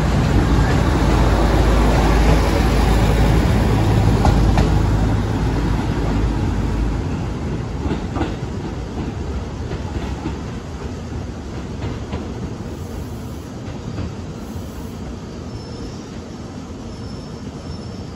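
JR Central's Doctor Tokai (KiYa 95 series) diesel inspection train pulling away along the tracks. Its engine and wheels rumble loudly at first, with a few sharp wheel clacks over the points, then the sound fades steadily as the train moves into the distance.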